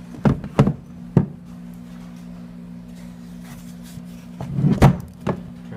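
Hard plastic knocks and bumps as the Feelfree Lure kayak's removable sonar pod is pulled out of its slot in the hull and handled: a few quick knocks in the first second, then a louder clatter near the end.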